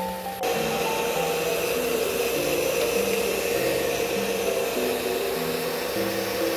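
Handheld hair dryer running steadily, blowing on a cat's wet fur to dry it. It cuts in abruptly about half a second in, with light background music playing over it.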